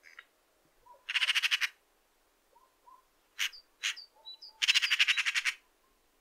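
Eurasian magpie (Pica pica) chattering: two bursts of a rapid, harsh rattle about three seconds apart, with two short single harsh notes between them.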